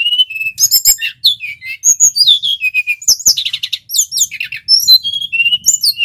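A male brown-chested jungle flycatcher (sikatan rimba dada coklat) singing a fast, varied song of whistled notes and trills without a break, many of the notes sliding up or down in pitch.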